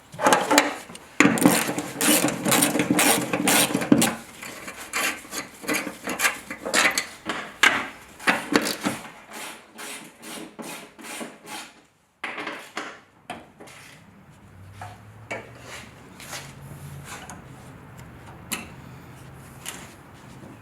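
Repeated hand strokes of a tool scraping and rubbing against metal. The strokes are quick and loud for the first few seconds, then lighter and more scattered, stopping briefly about twelve seconds in before a few faint strokes resume.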